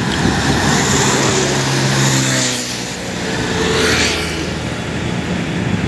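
Highway traffic passing close: a vehicle's engine tone slides down in pitch as it goes by, over steady tyre noise, and another vehicle rushes past about four seconds in.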